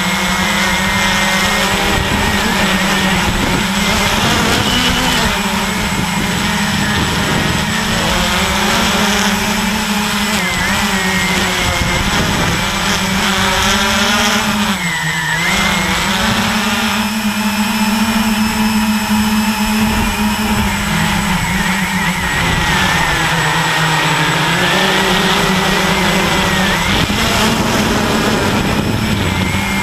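Walkera QR X350 quadcopter's four electric motors and propellers buzzing, heard up close through the onboard GoPro over a steady rushing noise. The pitch wavers as the motors speed up and slow down, dipping briefly about halfway through before climbing again.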